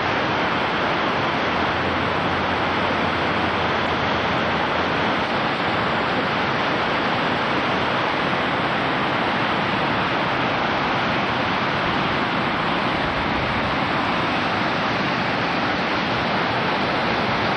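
Waterfall rushing: the steady, unbroken hiss of falling water.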